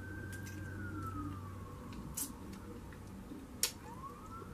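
An emergency-vehicle siren wailing: a slow rising and falling tone that dips and starts climbing again near the end. A few sharp mouth clicks from biting and chewing barbecue ribs stand out over it, the loudest about three and a half seconds in.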